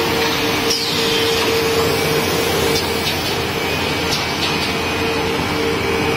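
Zhan Fei two-head CNC tenoning machine running: a steady motor hum with a held whining tone and the rush of dust extraction, and a few short clicks or knocks.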